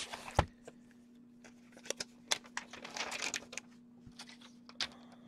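Plastic poly mailer rustling and crinkling as it is handled, with a knock about half a second in and scattered light clicks. A faint steady hum sits underneath.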